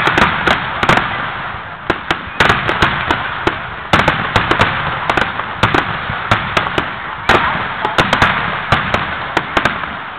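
Finale barrage of aerial fireworks: a rapid string of sharp bangs, several a second, over continuous crackling, thinning out near the end.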